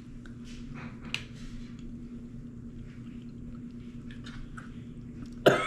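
People chewing spoonfuls of chicken noodle soup: faint soft chewing and small wet mouth clicks over a steady low hum. A brief loud vocal sound breaks in at the very end.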